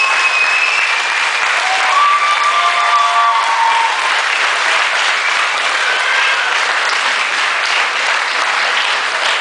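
Large audience applauding steadily, with a few high whoops and cheers over the clapping in the first few seconds.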